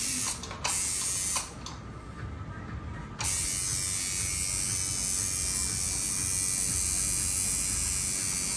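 Tattoo machine buzzing steadily. It cuts out briefly about half a second in, then again for nearly two seconds from about a second and a half in, and runs on after that.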